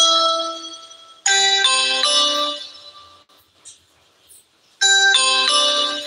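A bell-like electronic chime tune of a few quick notes, played over and over with a new phrase about every three and a half seconds, each phrase fading out after it is struck.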